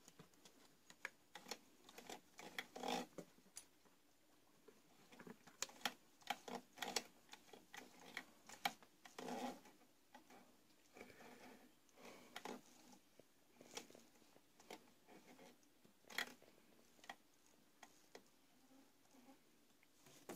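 Faint, irregular small clicks and taps of metal parts as the old Dressmaker sewing machine's mechanism is worked by hand, the feed dogs moving up and down again after a loose screw was refitted.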